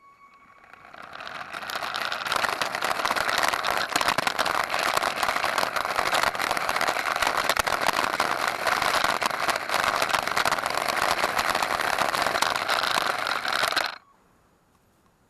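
A Lego RC car's electric motor and chain-driven plastic drivetrain running, a dense crackly whir. It builds over the first two seconds, holds steady and then cuts off suddenly near the end.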